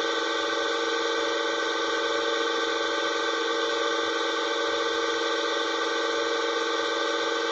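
A steady, unchanging horn-like drone: several tones held together at an even loudness, without a break or change in pitch.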